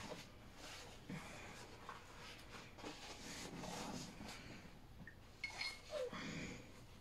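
Paper kitchen towel rustling softly as it is handled and folded, with a couple of light clinks about five and a half seconds in.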